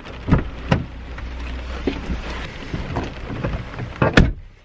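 Rain and outside noise coming through an open car door, with several knocks and rustles as a person climbs into the driver's seat. The car door shuts with a loud thud about four seconds in, and the outside noise drops away.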